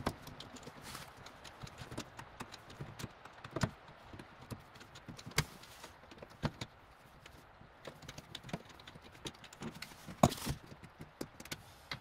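Screws being backed out of a Goodman gas furnace's sheet-metal access panel with a screwdriver: scattered small clicks and metallic ticks at irregular intervals, with a sharper knock about ten seconds in.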